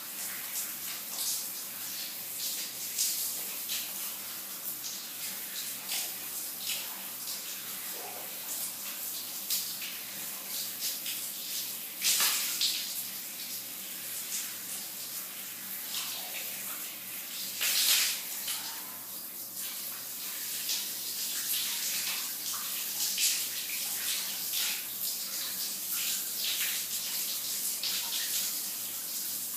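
A shower running: a steady hiss of falling water with irregular splashes, two louder splashes about twelve and eighteen seconds in. A faint low hum lies underneath.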